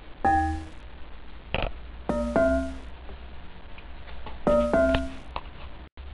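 Music with short electronic keyboard chords about every two seconds over a deep bass.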